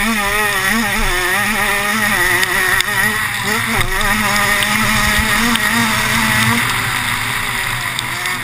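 Motocross dirt bike engine heard from an on-board camera during a race, its revs rising and falling over and over as the rider works the throttle.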